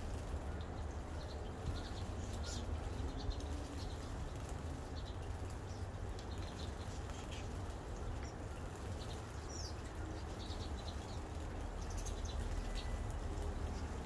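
Steady rain with scattered short bird chirps and calls throughout, one a brief sliding call about two-thirds of the way in.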